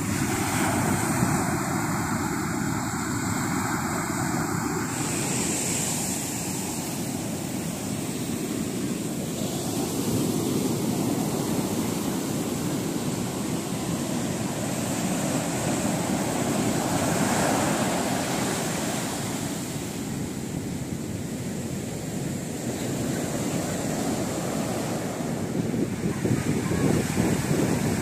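Rough monsoon surf breaking on a sandy shore: a continuous rush of waves that swells and ebbs as successive breakers come in.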